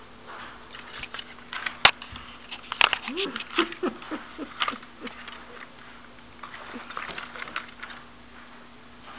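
Golden Retriever puppy sniffing and snuffling right up against the microphone, with scratchy rustling, two sharp knocks about two and three seconds in, and a run of short, high little whines soon after. The snuffling picks up again near the end.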